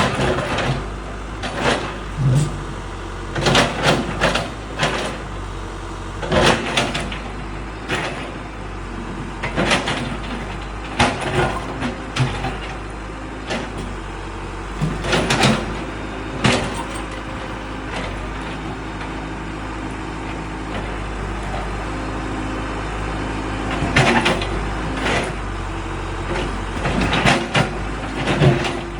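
Case 580 backhoe loader's diesel engine running steadily while its bucket breaks up a concrete floor. Irregular loud clanks and scrapes of steel on concrete come every second or two, with a quieter stretch of plain engine running in the middle.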